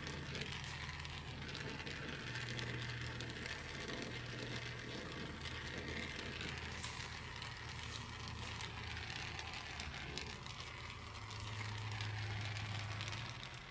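Handheld gas torch burning steadily, a hissing rush with a low rumble, its flame held on a brass radiator core to heat the seam for soldering.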